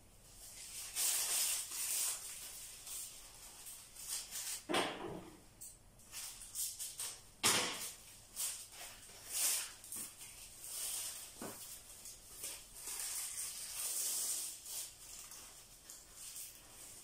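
Thin black plastic strips rustling and crinkling in the hands as they are handled and tied onto a string. The rustles come in irregular bursts, with two sharper snaps or knocks about five and seven and a half seconds in.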